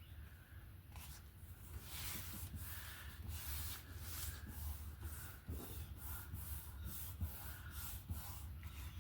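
Brisk rubbing strokes on paper, two to three a second, starting about two seconds in.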